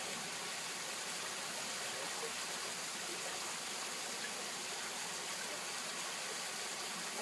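Steady rush of water from a backyard pool's rock waterfall spilling into the pool.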